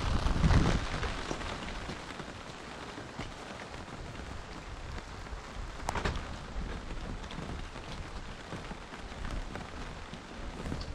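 Steady rain falling, an even hiss of rain with scattered individual drop taps. It is heavier for the first second or so, and one sharp drop tap stands out about halfway through.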